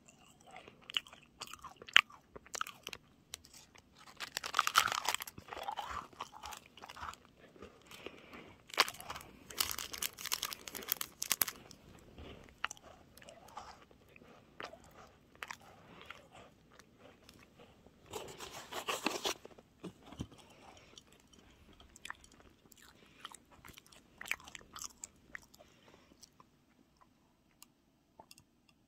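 Close-up crunching and chewing of a chocolate-coated Pepero biscuit stick with nut pieces. It comes in irregular bouts with pauses, and the loudest crunching is about four to five seconds in, around nine to eleven seconds in, and near nineteen seconds in.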